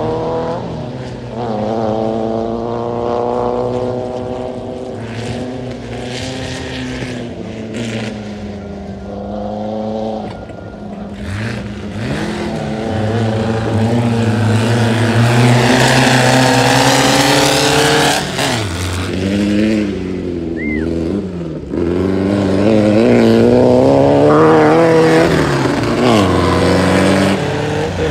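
Air-cooled VW flat-four engine of a tubular off-road race buggy, revving up and down over and over as it accelerates and eases off. It is loudest about halfway through and again near the end.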